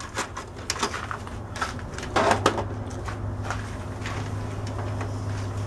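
Emerson EWV404 VHS VCR taking in a cassette: a run of plastic clicks and clunks as the tape is pushed into the slot and the loading mechanism draws it down, the loudest about two seconds in, over a steady low hum.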